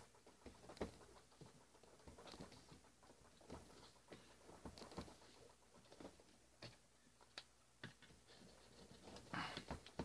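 Very faint scattered taps and rustles of thick folded origami paper being pressed flat, with a marker pen's barrel rubbed firmly along the creases so the folds stay shut.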